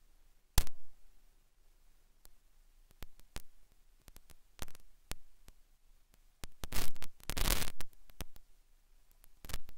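Weco multicolour fountain battery (22 mm) burning: scattered sharp pops and crackles from its popping stars and crackle effect. There is a loud pop about half a second in, single cracks a few seconds later and a dense flurry of crackling about two-thirds of the way through.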